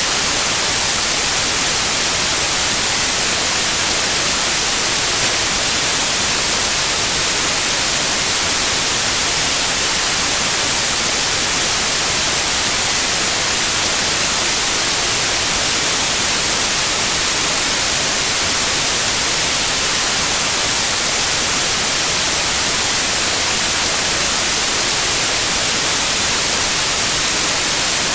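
Synthetic white noise, a steady even hiss, for tinnitus sound therapy. A thin, high steady 9645 Hz tone is added over it about two-thirds of the way through.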